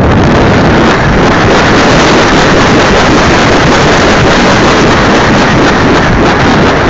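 Nitro glow engine of a radio-control trainer airplane running steadily at flight throttle, loud and close from a camera mounted on its cowl, mixed with wind rushing over the microphone.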